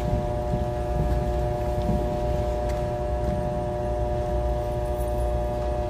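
Steady hum made of several even tones over a low rumble, with a few faint taps scattered through it.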